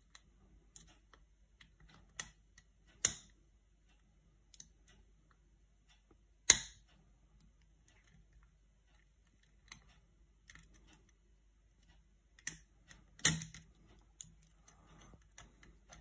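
Lock pick and tension wrench working in a pin-tumbler challenge lock cylinder, with scattered small metallic clicks and ticks and a few sharper clicks about three, six and a half and thirteen seconds in. The lock is held in a slight false set, the sign of a spool pin.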